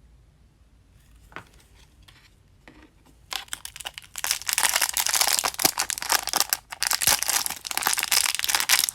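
Crinkly plastic blind-bag packaging being handled and torn open, after a few seconds of faint clicks and handling; the crinkling starts about three seconds in and runs on densely.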